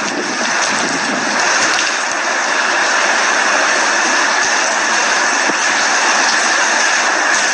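Heavy hurricane rain coming down, a loud, steady rush of noise.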